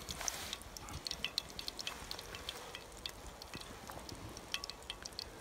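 Hot oil in a frying pan on a small wood-burning stove, faint and irregular popping and crackling throughout.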